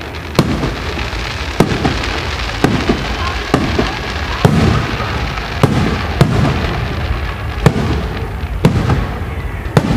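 Fireworks display: aerial shells bursting about once a second, sharp bangs over a continuous crackle of exploding stars.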